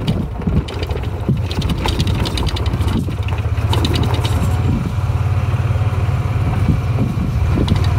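Small engine of a gas golf cart running steadily as it drives along, a constant low hum.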